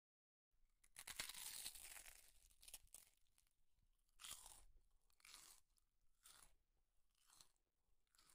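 Faint close-up eating sounds: fingers mixing moist rice and curry on a steel plate and mouthfuls being chewed. A longer stretch of noise near the start gives way to short soft bursts about once a second.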